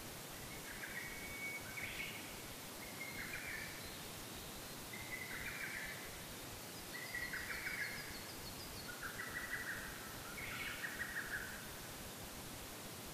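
A songbird singing the same short trilled phrase over and over, about six times, one every couple of seconds, with fainter high twittering from another bird, over a steady background hiss.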